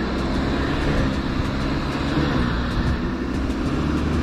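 Mahindra Thar engine revving, its pitch rising and falling, as the 4x4 spins its wheels in deep loose sand: the vehicle is stuck.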